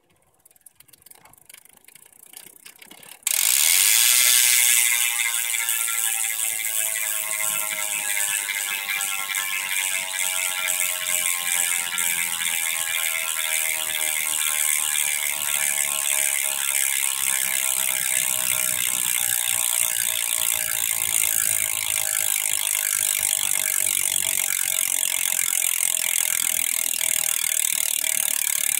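Hope Pro 2 Evo rear hub freewheeling: its pawls click so fast that they make a loud buzz. After a few faint clicks, the buzz starts suddenly about three seconds in and then slowly drops in pitch as the spinning wheel slows down.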